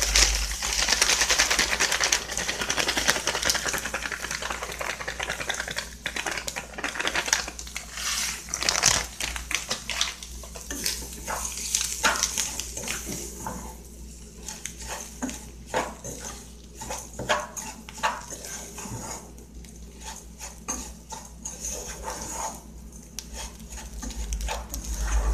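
A spatula stirring farofa mix in a saucepan: many short scrapes and taps against the pan, after a dense hiss in the first few seconds.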